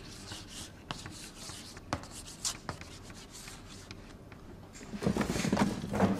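Chalk scratching on a blackboard as characters are written, in short, irregular strokes, with a louder stretch of noise about five seconds in.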